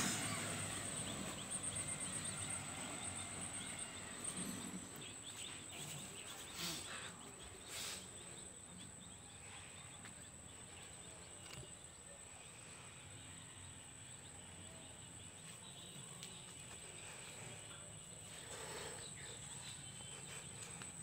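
Quiet rural outdoor ambience: a steady high-pitched insect whine throughout, with faint animal or bird sounds and two short sharp knocks about seven and eight seconds in.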